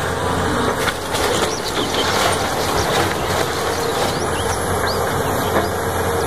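Caterpillar tracked hydraulic excavator's diesel engine running steadily while it tears into a wooden house, with scattered cracks and crunches of breaking timber and debris.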